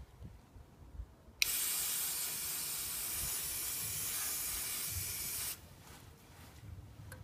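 Aerosol carburettor cleaner sprayed in one steady hiss of about four seconds, starting sharply about a second and a half in and cutting off suddenly. It is rinsing oil drips off a newly fitted oil filter.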